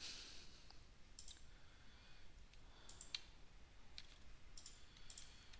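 Faint computer mouse clicks, a handful of single and quick double clicks spread out.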